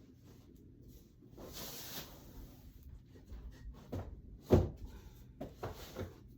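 Household handling noises: a brief rustle, then a handful of knocks and bumps, the loudest about four and a half seconds in, as objects are set down and moved around.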